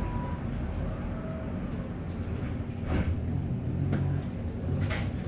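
Tram running along the street, heard from inside the car as a steady low rumble, with a couple of sharp clicks about three and five seconds in.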